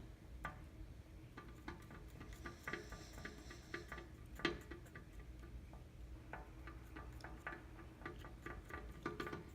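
Light, irregular clicking and tapping, a few times a second, of a stick stirring slime powder and water inside a bottle.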